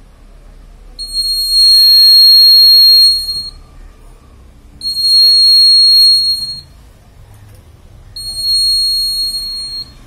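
A 12-volt buzzer in a homemade bag theft alarm sounds a steady high-pitched tone three times, each burst lasting about two seconds, as the bag is opened: light falling on the alarm's light-dependent resistor switches the relay that powers the buzzer.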